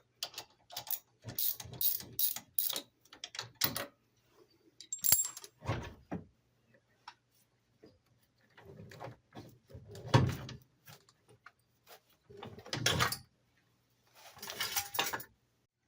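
Hand ratchet wrench clicking in quick runs, then a few scattered metal clicks and knocks.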